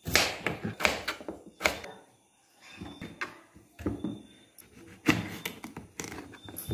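Kitchen knife slicing raw potato and eggplant on a plastic cutting board: irregular knocks as the blade comes down onto the board, with a short lull about two seconds in.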